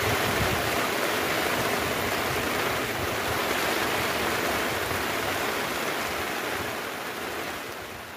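Heavy rain pouring onto the sea surface around an outrigger boat, a steady dense rush of water noise that fades out near the end.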